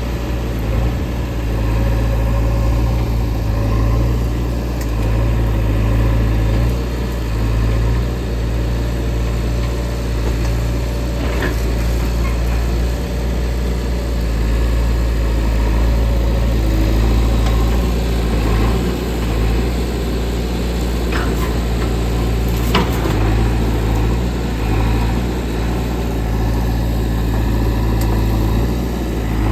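Diesel engine of heavy machinery running steadily, with a few short knocks partway through.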